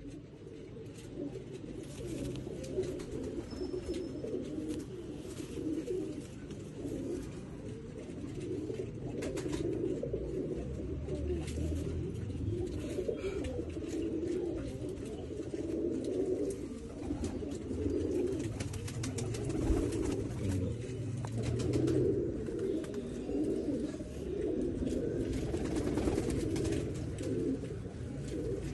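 Domestic pigeons cooing continuously, many birds' coos overlapping into a steady low pulsing chorus.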